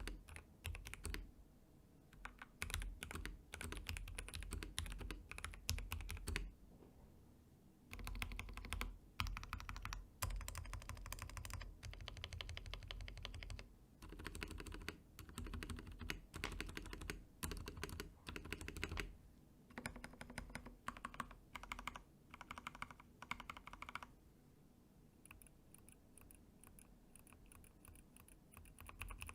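FL Esports FL750 mechanical keyboard with Gateron G Pro Yellow linear switches being typed on: runs of rapid keystrokes in bursts of a few seconds, broken by short pauses, with lighter keystrokes near the end.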